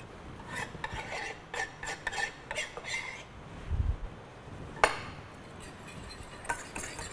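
Wire whisk scraping and clinking against a small stainless-steel saucepan in quick strokes, stirring chopped herbs into béarnaise sauce. The strokes stop after about three seconds, then come a dull bump and a single sharp knock, with a few lighter scrapes near the end.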